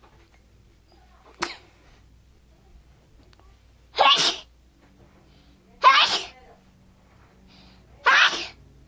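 A person sneezing three times in a row, about two seconds apart, with a brief sharp sound about a second and a half in. The sneezes are brought on by tickling the nose.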